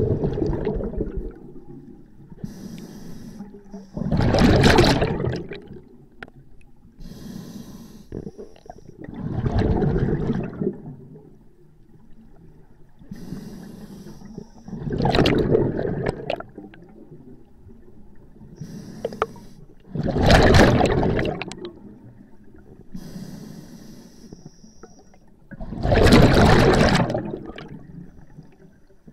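Scuba regulator breathing underwater: a short hiss of inhalation through the demand valve, then a loud rush of exhaled bubbles, repeating every five to six seconds in a slow, calm rhythm.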